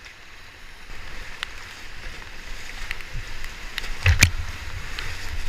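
Whitewater river rushing past a raft, a steady hiss of moving water with scattered small splashes and knocks. A louder splash with a low thump comes about four seconds in.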